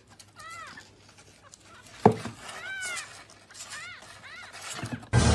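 A tiny kitten mewing: several short, thin, high-pitched mews, each rising then falling. A sharp knock about two seconds in, and a loud burst of noise near the end.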